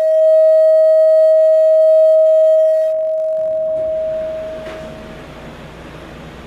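Shofar (ram's horn) blown in one steady held note, loud for about three seconds, then thinning and dying away over the next two seconds.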